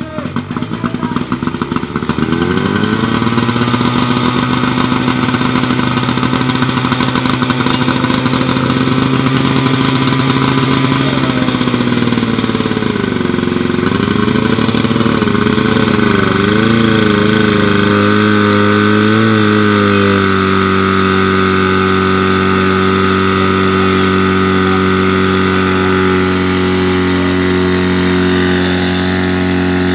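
PS 8 portable fire pump's engine running hard as it pumps water. It revs up about two seconds in and holds high, its pitch dips and wavers about halfway through, then it settles at a steady, lower speed.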